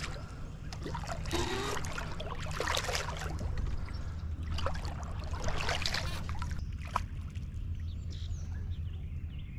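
Splashing in creek water in irregular bursts as a hooked white bass is played to the bank, over a steady low rumble. A single sharp click about seven seconds in.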